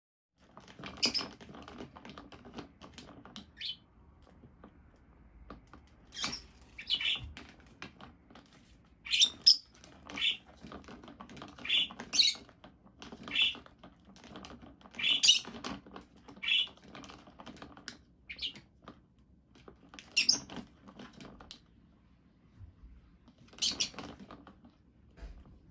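A rosy-faced lovebird working the swing lid of a plastic bin: a dozen or more sharp, irregular plastic clicks and clacks, some in quick pairs, as the lid tips and knocks.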